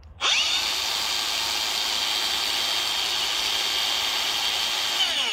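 Makita brushless angle grinder fitted with a cutting disc, spinning up about a quarter second in to a steady high whine, running free with no load. Near the end it is switched off and begins to wind down.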